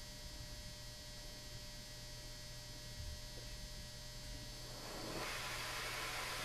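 Faint steady electrical hum, then about five seconds in the gas of a handheld propane torch starts to hiss as it is opened and lit, and keeps hissing steadily.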